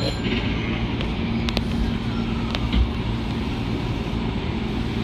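Steady rumble and low hum inside a train car, with a few light clicks about one and a half to three seconds in.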